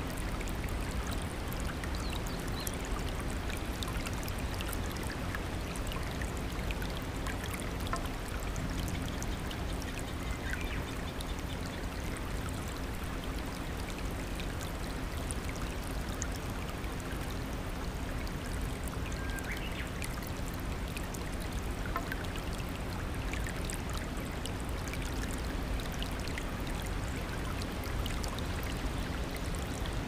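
Rocky stream running steadily over stones in small cascades, a continuous rush of water.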